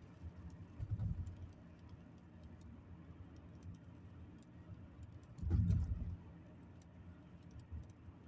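Road noise of a moving vehicle: a steady low rumble with scattered faint ticks, swelling briefly about a second in and more strongly about five and a half seconds in.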